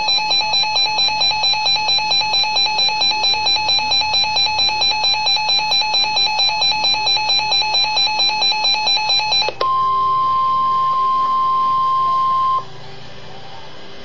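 Emergency Alert System alarm tones heralding a severe thunderstorm warning: a loud electronic beep pulsing about four times a second for about nine and a half seconds, then a steady single-pitched alert tone for about three seconds that cuts off abruptly.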